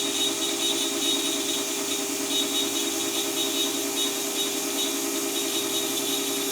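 CNC router spindle running while an end mill mills an aluminium plate: a steady machine drone with a high tone that comes and goes.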